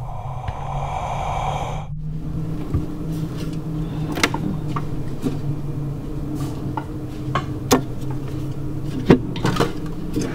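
Glass jars and plastic food containers clinking and knocking against refrigerator shelves as they are taken out one by one, over a low steady hum. Before that, about two seconds of eerie droning film sound that cuts off suddenly.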